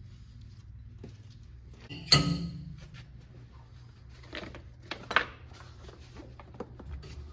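A sharp metal clank about two seconds in that rings briefly, then lighter clinks and knocks of metal tools or parts being handled, over a low steady hum.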